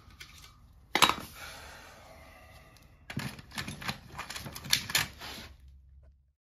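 Hard clicks and clatter of hand tools and the camera being handled: one sharp clack about a second in, then a quick run of rattling clicks from about three seconds to five and a half, after which the sound cuts out.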